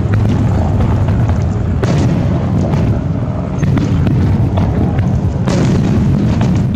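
Aerial firework shells launching and bursting in a continuous barrage: booming with sharper bangs about two seconds in and again about five and a half seconds in, and scattered crackles.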